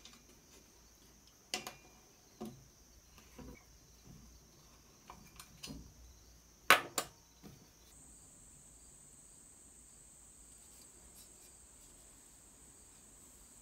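Aluminium laptop plate and its fittings handled on a stone tabletop: a few light metal clicks and taps, and one sharper clank about 7 seconds in. A faint steady high-pitched tone runs underneath and jumps a little higher about 8 seconds in.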